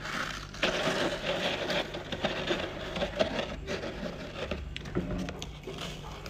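Chewing and crunching chunks of frosty freezer ice up close, a dense run of small cracks and crunches.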